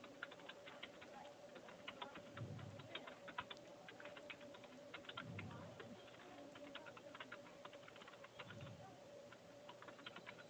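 Faint computer keyboard typing: quick, irregular keystroke clicks over a steady low hum, with a few soft low swells about every three seconds.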